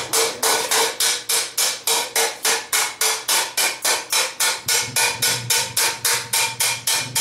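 Hand hammer striking a hot steel frying-pan blank on a steel stake: a steady run of blows, about four a second, each with a metallic ring as the bowl of the pan is shaped.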